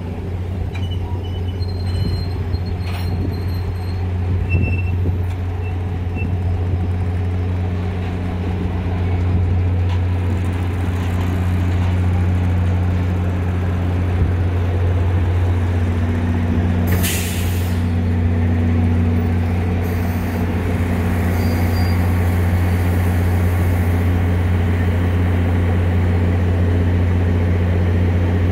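EMD FL9 diesel locomotive engine running with a steady low drone as the train moves slowly past, with a short hiss of air about halfway through.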